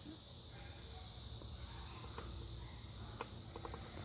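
Steady low hum and airy hiss of a 1998 Hunter Original ceiling fan running on low speed, with a few faint clicks about three seconds in.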